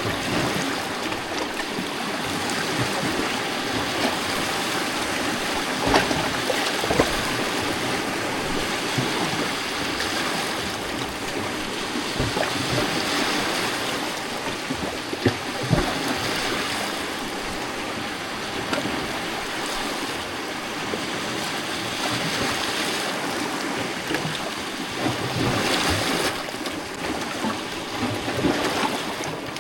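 Gentle lake waves lapping against a rocky shoreline: a steady wash of moving water with occasional sharper splashes.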